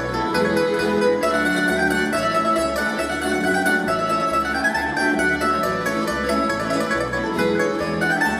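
A tamburica band plays a folk dance tune: bright, mandolin-like plucked strings over a pulsing bass line.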